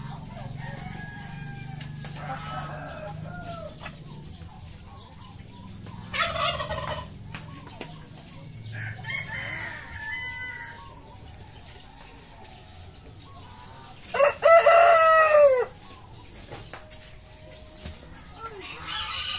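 Chickens clucking softly, with a short louder call about six seconds in, then a rooster crowing once, about a second and a half long, past the middle.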